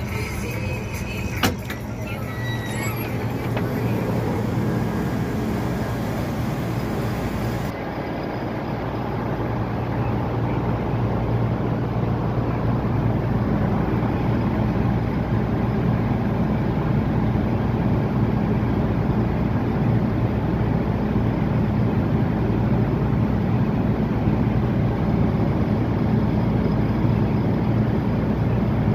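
Case 2555 cotton picker running steadily under load, its diesel engine droning with the picking units working, with a single sharp click about a second and a half in.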